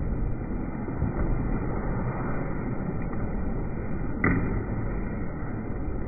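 Ice hockey arena din: a steady low noise of the rink and crowd, with one sharp knock about four seconds in.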